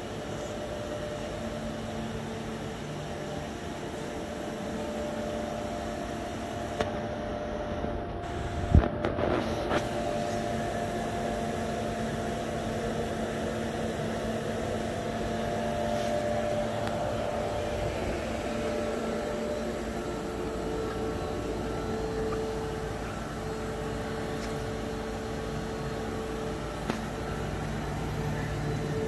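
Okuma MU-400V II 5-axis vertical machining center running: a steady motor and fan hum with held tones that shift and come and go, and a sharp click about nine seconds in.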